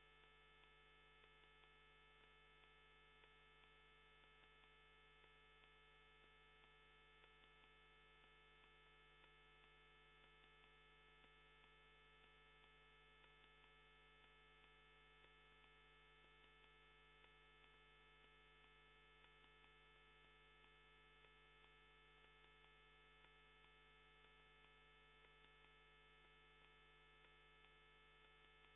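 Near silence: a faint, steady electrical hum that does not change, with no other sound.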